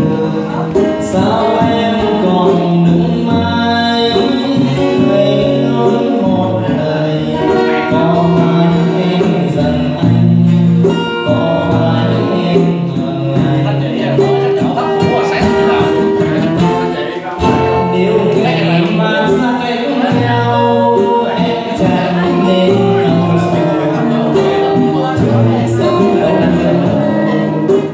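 A male voice singing a slow Vietnamese bolero into a microphone, accompanied by two strummed acoustic guitars and a tambourine.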